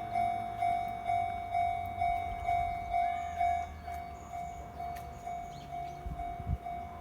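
Japanese level-crossing warning bell ringing in even strokes about twice a second, the strokes growing fainter after about three and a half seconds, over the low rumble of a Kintetsu train, with two low thumps near the end.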